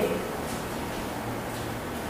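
Steady room tone: an even background hiss with a faint low hum and no distinct sound event.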